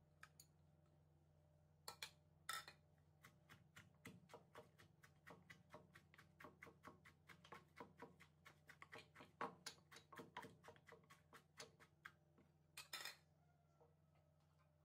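Shredded green papaya being stirred and tapped in a wooden mortar with a plastic spoon: a run of light clicks and knocks, about three a second, with a few louder clatters of crockery about two seconds in and again near the end.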